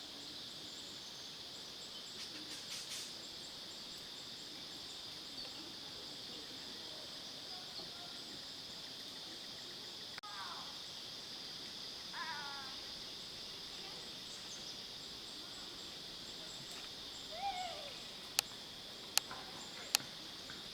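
A steady, high-pitched chorus of rainforest insects, with a few short falling bird chirps partway through. Near the end come three sharp clicks, about a second apart.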